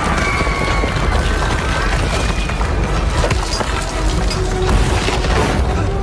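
Film sound mix of an earthquake: a steady deep rumble with cracking, splintering and crashing debris throughout, under a film score.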